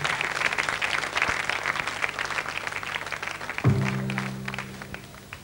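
Audience applause, fading away. Near the end a sustained low chord comes in sharply and holds as the band begins a slow blues.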